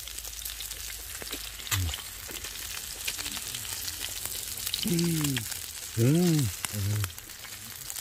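Meat sizzling in hot fat in a coated frying pan over charcoal, with a steady crackle and many small pops and spits. A few short murmurs from a man's voice come in about five and six seconds in.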